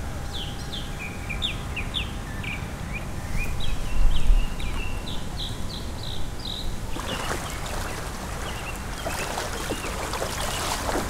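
A bird gives a quick run of short, repeated chirps over a low wind rumble on the microphone. About seven seconds in, water splashing takes over as a small e-bike is pushed through ankle-deep floodwater.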